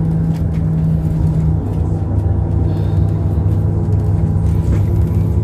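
Bus engine running with a steady low drone, heard from inside the passenger cabin.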